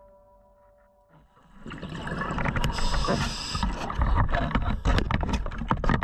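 Scuba diver's regulator breathing underwater: exhaled bubbles rumble and crackle loudly from about a second and a half in, with a brief hiss near the middle.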